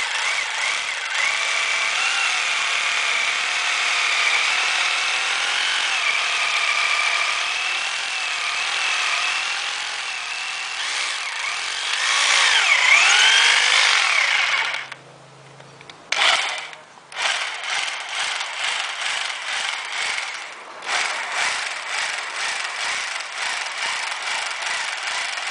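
Electric drill boring holes into floor tile, its motor whine wavering and rising and falling as the load changes. It stops for about two seconds partway through, gives a short burst, then starts again with a pulsing running sound.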